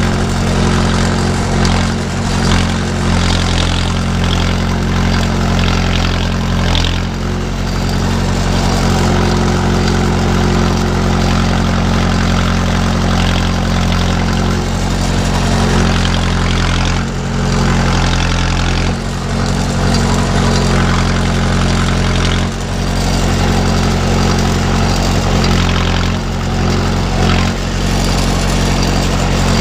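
A 45 hp utility tractor's engine running steadily close to the microphone, with the tractor moving a round hay bale on its front loader. Its level dips briefly a few times in the second half.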